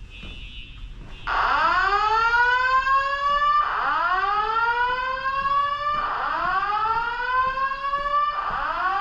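Fire alarm evacuation tone sounding a whoop: loud rising sweeps repeating about every two and a half seconds, starting about a second in, after a faint steady high tone.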